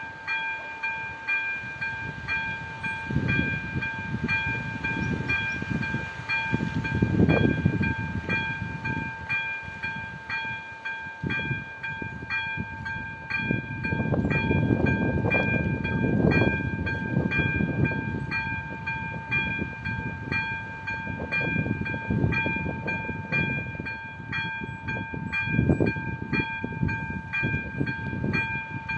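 Czech level-crossing warning signal sounding its electronic bell, a steady ringing tone pulsing evenly a little more than once a second while the red lights flash, the warning that a train is coming. Under it a low rumble swells and fades, loudest around the middle.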